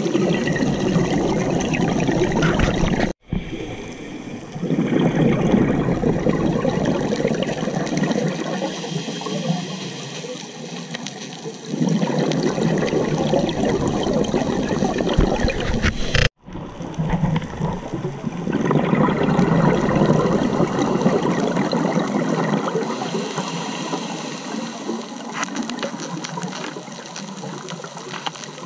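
Scuba regulator exhaust bubbles heard underwater: long rushing bursts of bubbling, each lasting several seconds, with quieter stretches between them as the diver breathes in. The sound cuts out for an instant twice.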